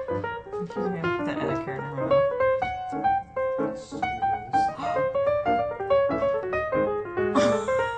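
Background music: a quick, bouncy piano melody.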